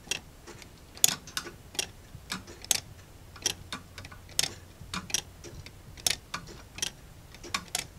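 3D-printed plastic grasshopper escapement ticking as its pallet arms catch the escape-wheel teeth: sharp ticks a little more often than once a second, uneven in strength, with fainter clicks between.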